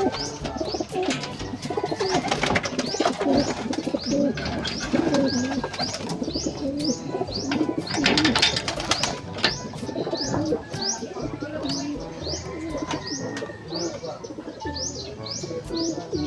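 Racing pigeons cooing in the loft, with wing flaps and clattering against the wooden boxes now and then. From about six seconds in, a run of high rising chirps repeats about twice a second.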